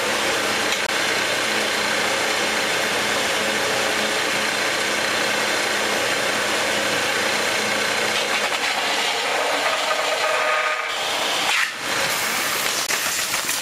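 Belt sander running with a small steel blank held in locking pliers pressed against its abrasive belt, a steady grinding rasp of metal on the belt. The contact lets up briefly near the end, then the grinding resumes.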